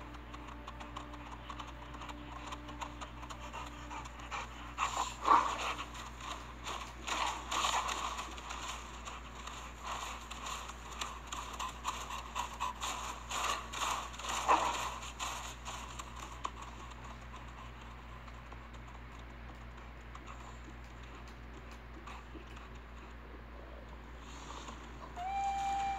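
A wolf panting and sniffing, with scattered crisp crunching steps in snow. These are busiest in the first half and include a couple of louder snorts. After that the sound falls quiet.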